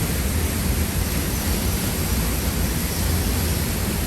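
Large waterfall pouring, a steady dense rush of water with a strong low rumble.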